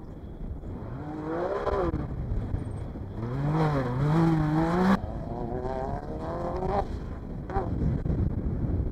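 Off-road race car engines revving hard as the cars accelerate along a dirt course, the engine note climbing and dropping again and again with throttle and gear changes. The loudest run is about halfway through, and a second car is heard after it.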